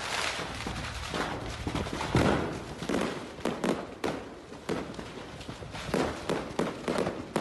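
Fireworks going off uncontrolled as the stock of a burning fireworks store ignites: rapid, irregular bangs and crackles, several a second.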